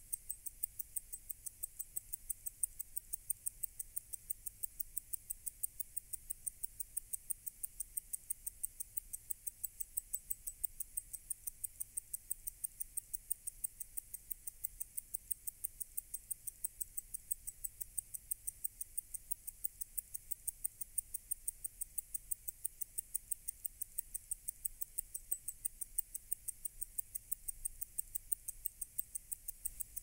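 Rotary skeleton mechanical wristwatch ticking: a fast, perfectly even run of sharp, high ticks from the escapement.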